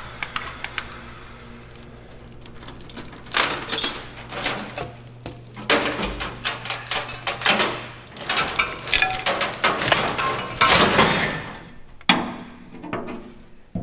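Steel lifting chains rattling and clinking as they are handled, in a string of quick metallic clatters over several seconds.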